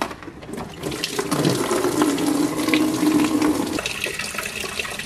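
Coolant pouring out of the radiator drain on a BMW E36 M3 and splashing into a drain bucket. The steady pour starts about a second in as the plug comes free, with a hollow tone that shifts about four seconds in.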